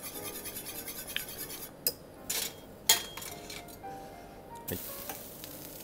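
Wire whisk beating a sauce in a small stainless-steel saucepan, a fast even scraping that stops a little under two seconds in, as roux is worked in to thicken it. The whisk then clinks against the pan a few times, the last and loudest just before three seconds. Soft background music plays throughout.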